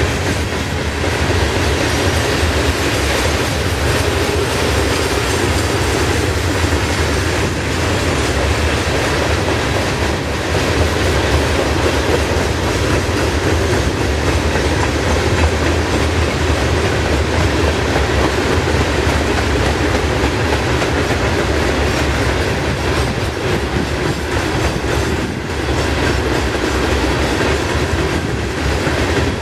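A long string of open-top freight cars rolling past steadily. Steel wheels rumble on the rail, with a continuous clickety-clack of wheels over rail joints.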